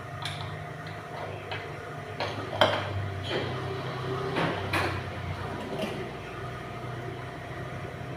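Several sharp metallic clinks and knocks, like hand tools or metal parts being handled, over a steady low hum.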